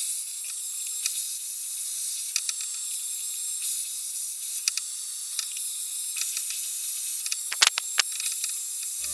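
Shark hair dryer blowing steadily, a hiss of airflow with no attachment fitted. A few small clicks over it, with two sharper ticks near the end.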